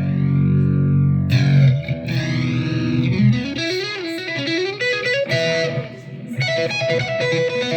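Electric guitar played through a Donner Arena 2000 multi-effects processor preset. Held chords carry a sweeping modulation effect, then a single-note lead line with a bend begins about three seconds in, followed by repeated higher notes.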